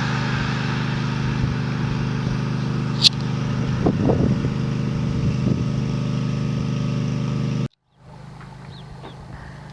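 An engine running steadily with an even drone, and a sharp click about three seconds in. It cuts off abruptly near the end, and a quieter steady background follows.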